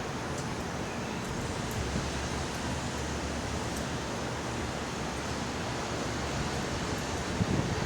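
Wood fire burning in a steady rushing hiss, with wind on the microphone and a few faint scattered crackles from the slightly damp firewood.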